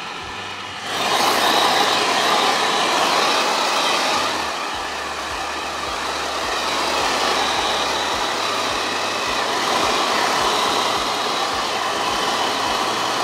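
Hand-held hair dryer blowing. It comes on about a second in and runs steadily with a faint high whine.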